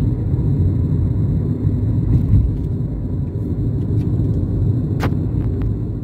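Steady low rumble of a car driving along the road, with a single sharp click about five seconds in.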